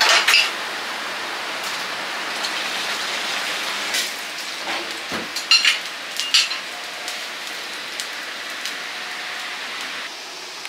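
Steady sizzling of food frying in hot oil in a restaurant kitchen, with several sharp metal clanks of utensils about four to six and a half seconds in. The sizzle drops off near the end.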